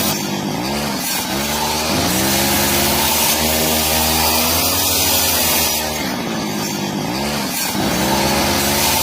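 Electric power tool cutting or shaping wood, its motor running steadily and dropping in pitch several times as it bogs under load, then picking back up.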